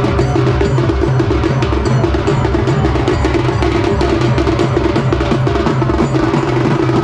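A troupe of drummers beating double-headed drums with sticks in a fast, loud, driving rhythm, over a steady drone.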